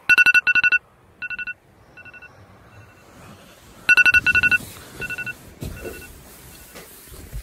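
Electronic alarm beeping: a rapid run of high beeps at the start and again about four seconds in, each followed by fainter repeats that fade away.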